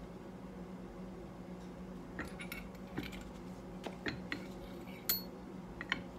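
Light metallic clicks and clinks as a stamped steel washer is worked down a motorcycle fork tube: about a dozen scattered ones starting about two seconds in, with one sharper ringing clink about five seconds in. A steady low hum sits underneath.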